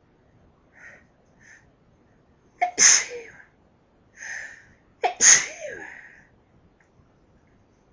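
A person sneezing twice, about two and a half seconds apart, with short in-breaths before and between the sneezes. It is an allergic sneezing fit brought on by lilies.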